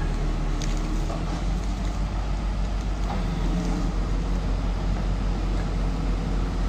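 Heavy truck engine running steadily at low speed: a deep, even hum with a few faint clanks.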